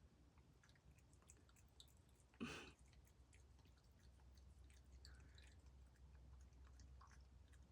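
Faint chewing of a cat gnawing a chicken wing: scattered small clicks, with one louder short noise about two and a half seconds in.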